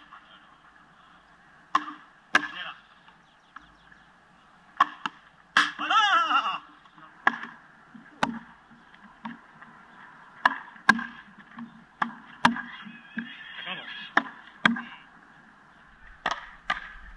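Frontenis rally: rackets striking the small rubber ball and the ball smacking off the fronton wall and floor. Sharp, separate cracks come irregularly, every half second to a second or so.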